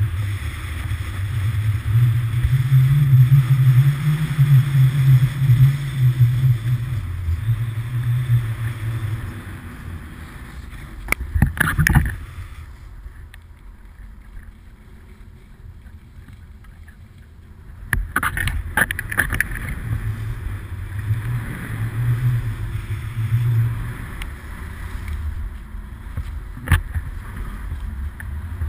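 Wind buffeting an action camera's microphone during a ski run, with skis hissing and scraping over the snow. The rumble drops away for several seconds in the middle, and a few sharp clacks stand out.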